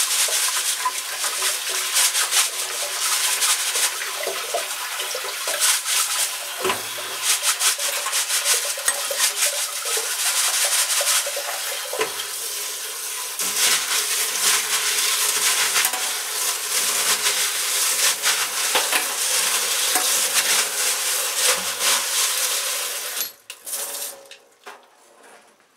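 Sink spray-hose water pouring onto a metal colander of still-column packing media, with many sharp clinks and rattles of the pieces as they are rinsed and stirred by hand. The water cuts off suddenly near the end.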